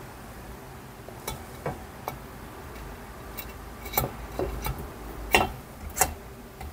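Scattered light metallic clicks and knocks, about seven, irregularly spaced, as the aluminium crankcase halves of a Kawasaki ZX130 engine are worked together by hand.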